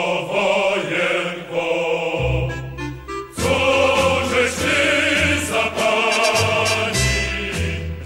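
Background music: a choir singing with vibrato over an instrumental accompaniment with a stepping bass line, easing into a short lull about three seconds in before resuming.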